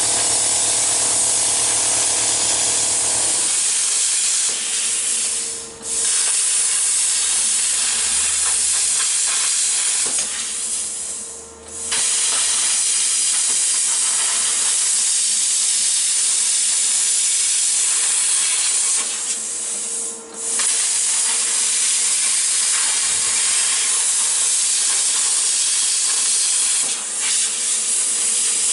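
Plasma cutter cutting 14-gauge sheet steel: a loud, steady hiss of the arc and air jet, which drops out briefly three times, about six, twelve and twenty seconds in, as the torch stops and restarts.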